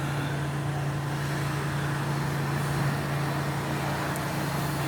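A steady low mechanical hum, like a running motor or engine, over an even outdoor background noise.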